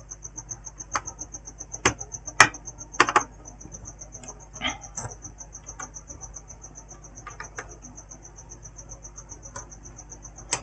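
An insect, cricket-like, chirping steadily in the background as a fast, even, high-pitched pulse, with occasional sharp clicks and taps throughout.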